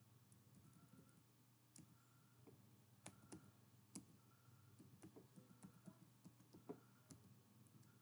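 Faint, irregular keystrokes on a computer keyboard as code is typed and corrected, over a steady low hum.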